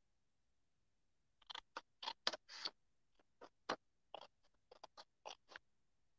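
Designer-series paper being handled on a craft mat: an irregular run of short scratchy rustles and crinkles, starting about a second and a half in.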